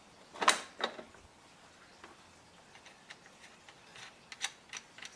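Scattered light metallic clicks of hand tools tightening a new front wheel onto a self-propelled lawn mower. Two louder clicks come about half a second in, then fainter, irregular clicks.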